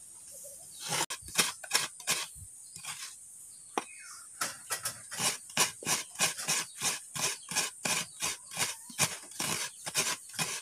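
Coconut half-shell scraped against the serrated metal blade of a bench coconut grater (kudkuran), a rasping stroke repeated about three times a second, steadier from about four seconds in.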